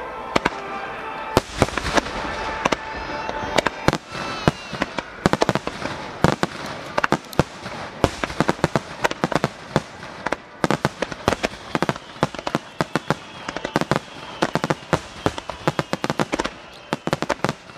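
Aerial fireworks shells bursting in a rapid, irregular string of sharp bangs with crackle. The bursts come thicker and faster in the second half.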